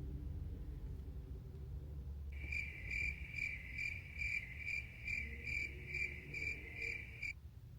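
A high-pitched tone pulsing about twice a second starts a couple of seconds in and stops about five seconds later, over a low steady rumble.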